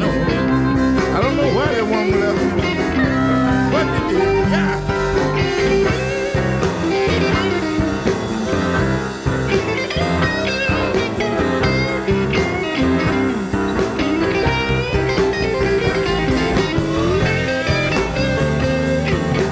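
Electric blues band playing live in an instrumental passage, with guitar over bass, drums and a steady beat.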